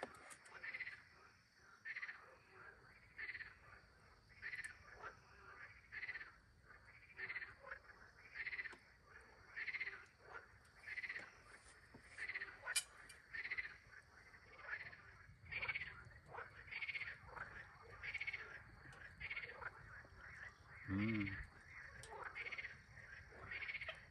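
Frogs croaking in a steady night chorus, short calls repeating evenly about one and a half times a second.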